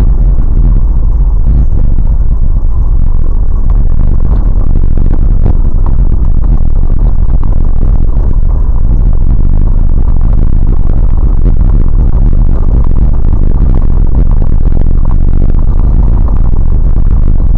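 Loud, steady low rumble of a vehicle driving slowly over a rough, snow-covered dirt track, heard from inside the cabin through a dashcam, with scattered rattles and knocks as it jolts along.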